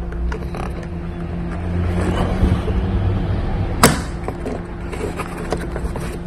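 Small clicks and knocks of hand tools and parts being worked in a car's engine bay, with one sharp snap about four seconds in, over a steady low hum.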